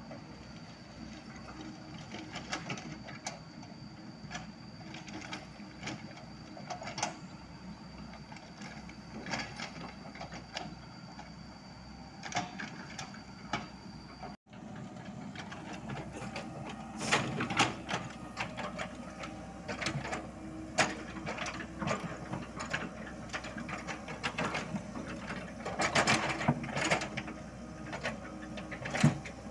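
Komatsu PC78US mini excavator working: a steady diesel engine and hydraulic hum with the steel bucket scraping and knocking against stones and gravel. A thin high whine runs through the first half. About halfway the sound changes abruptly, and the clanks and rock knocks come louder and more often.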